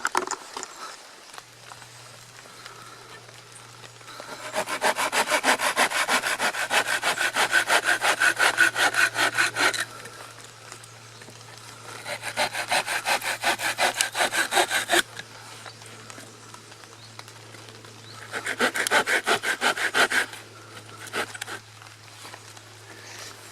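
A hand saw cutting firewood with quick, even back-and-forth strokes, in three bouts: a long one of about five seconds starting about four seconds in, a shorter one of about three seconds around twelve seconds in, and a brief one about eighteen seconds in.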